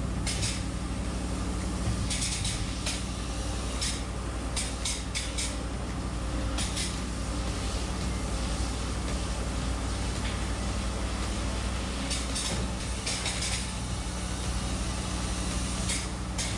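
Spray-foam gun hissing in repeated short bursts as closed-cell foam is sprayed onto wall studs, with a long gap in the middle, over a steady low hum of machinery.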